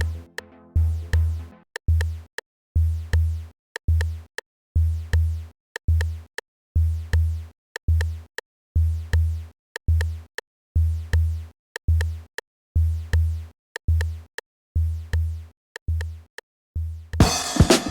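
Electronic background music: a steady deep drum-machine kick beat with synth tones, breaking into a busy, louder drum passage near the end.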